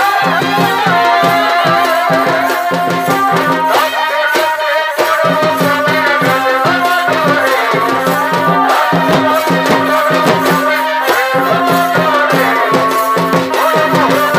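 Live Purulia Chhau dance music: a wavering, ornamented reed-pipe (shehnai) melody over a steady held low note, with dhol and dhamsa drums beating a running rhythm and sharp bright percussion strokes on top.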